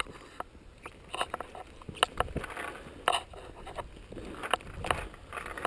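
Irregular sharp clicks and knocks, about a dozen, scattered over faint background noise.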